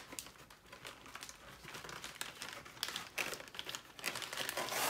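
Crinkling and rustling of MRE ration packaging being handled: a plastic-and-foil food pouch sliding against its cardboard sleeve, with scattered small clicks, growing louder near the end.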